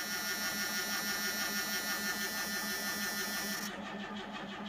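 Starter motor cranking the carbureted 2.8 V6 of a 1986 Chevrolet Celebrity with a steady, rhythmic chug, and the engine does not catch. It is a cold crank after about two and a half months of sitting, done before the accelerator is pumped.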